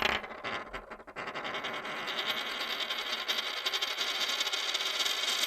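A short outro sound effect: a sudden bright hit, then a dense, shimmering metallic ringing that carries on steadily and cuts off abruptly.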